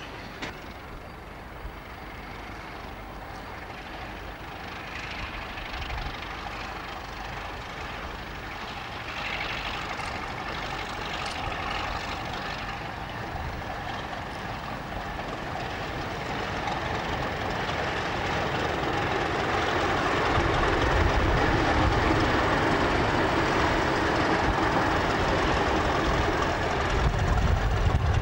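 A pair of British Rail Class 31 diesel locomotives running coupled together, their engines growing steadily louder as they approach. In the last third a deep rumble comes in as they pass close by.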